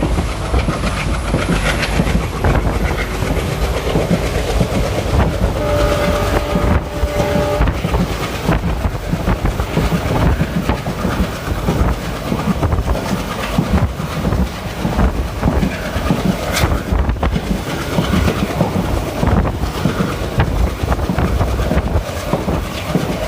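Passenger train running over the rails, heard from on board: a steady rumble with the clickety-clack of the wheels. About six seconds in, the locomotive horn sounds once for roughly two seconds.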